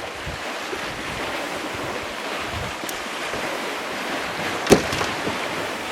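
Strong gusty wind buffeting the microphone, a steady rushing roar, with one sharp knock about three-quarters of the way through.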